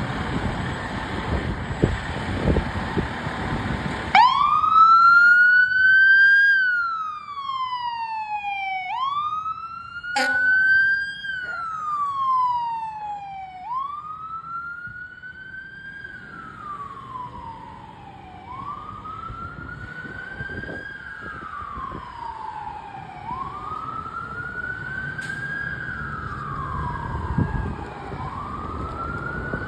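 Fire engine siren wailing, starting about four seconds in after a few seconds of loud rushing noise. It climbs quickly and slides slowly back down in repeated cycles, about one every four and a half seconds, with a short sharp sound about ten seconds in.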